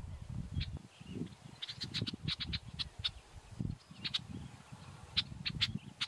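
Birds giving short, high chips and calls in irregular runs, with a quick flurry about two seconds in, over a low, uneven rumble.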